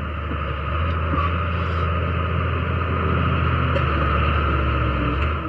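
Small D4 crawler bulldozer's diesel engine running steadily, working as the machine positions to push over a tree; the low engine note breaks off just before the end.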